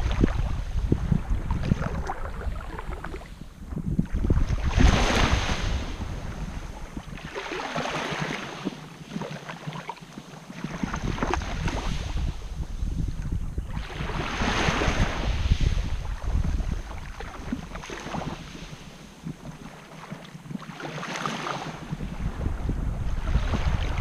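Small waves washing up and drawing back over a shore of coarse quartz grains, a surge every few seconds. Wind buffets the microphone with a low rumble that drops away twice.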